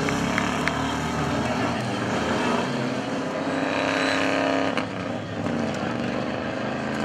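Off-road 4x4 engine running hard under load as the vehicle drives across the dirt course, a steady, throaty note over a gritty haze. The sound shifts slightly about five seconds in.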